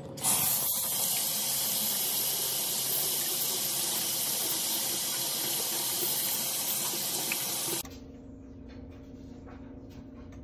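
Kitchen tap running into a stainless steel sink while a hand rinses something under the stream. The water sound cuts off suddenly about three-quarters of the way through, leaving quieter room tone with a steady low hum.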